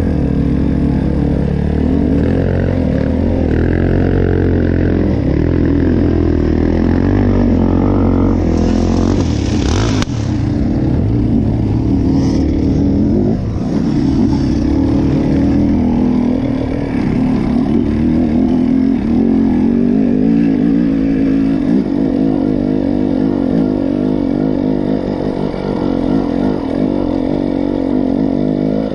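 Two-stroke TPI enduro dirt bike engine running under load on a climb, its pitch rising and falling as the throttle is worked, with a short burst of hiss about nine seconds in.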